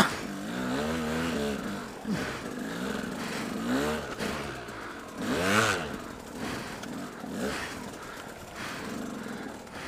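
Dirt bike engine revving up and down in repeated surges as the bike is ridden through tall dry grass, with grass scraping against the bike. A sharp knock right at the start is the loudest sound.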